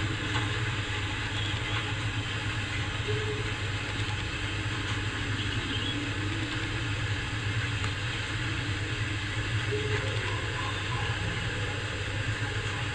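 Steady low hum with an even hiss, a constant background machine or room noise without distinct events.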